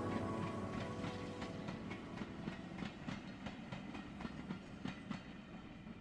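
Train wheels clicking over rail joints, about two or three clicks a second, fading away as the train moves off.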